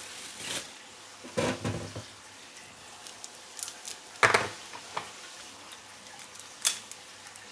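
Scattered clicks and knocks from a plastic handheld wireless microphone being handled as a 9V battery is fitted, with the loudest knock a little over four seconds in.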